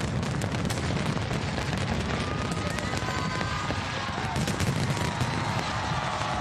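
Fireworks going off in rapid, dense succession: a constant crackle of sharp reports over a continuous low rumble. From about two seconds in, faint high tones come in over the crackle.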